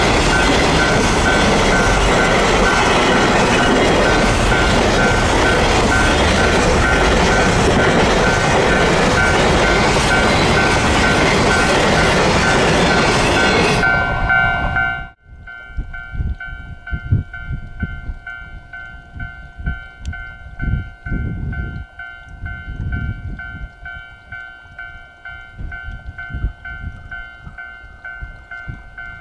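A train passes over a Japanese level crossing, its loud running noise lasting about fourteen seconds with the crossing's electronic warning bell ringing through it. The train noise then cuts off suddenly, leaving the crossing bell ringing and wind gusting on the microphone.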